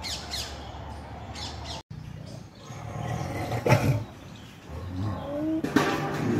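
Birds chirping, then a white tiger growling twice.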